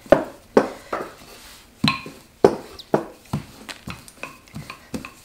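Wooden rolling pin rolling out pizza dough on a floured worktop: a run of knocks and short rumbles as it strikes and rolls on the counter, about two a second.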